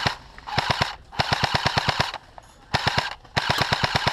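Airsoft electric rifle (a JG M4A1 AEG) firing full-auto in short bursts, about a dozen shots a second: the end of one burst at the start, then four more bursts.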